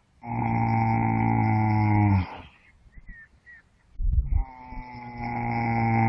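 Horse snoring loudly: a long, droning snore of about two seconds that drops slightly in pitch as it ends. After a pause and a brief low rumble, a second snore builds near the end.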